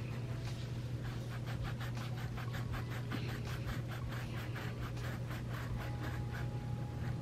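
Kitchen knife sawing back and forth into the felt and rubber shell of a tennis ball to cut a hole, a quick run of rasping strokes, several a second, that starts about a second in and stops near the end. A steady low hum sits underneath.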